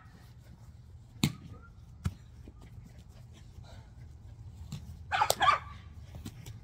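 A puppy barks briefly about five seconds in, during play; earlier, two sharp thumps sound about a second apart.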